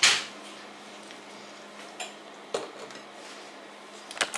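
Kitchen clatter of dishes and cutlery: a sharp, loud clack right at the start, then a few lighter knocks and clinks, over a faint steady hum.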